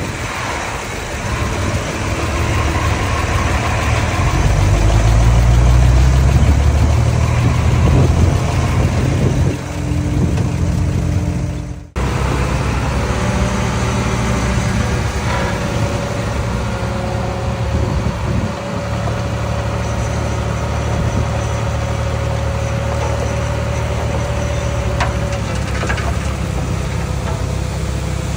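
Small bulldozer's diesel engine working under load, heavier and deeper in the first part. There is a sudden break near the middle, then steadier running with a held whine.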